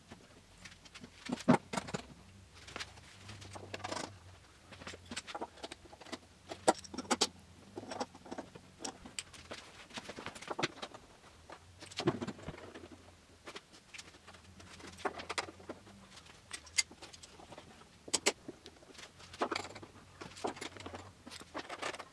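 Spool clamps being handled and fitted: threaded steel rods and wing nuts clinking and wooden spools knocking together in irregular clicks and clatters, with a few louder knocks.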